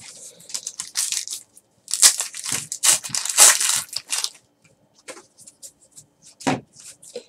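Foil wrapper of a 2014 Donruss baseball card pack being torn open and crinkled in the hands, loudest from about two to four and a half seconds in. After that come lighter clicks and rustles as the cards are fanned out.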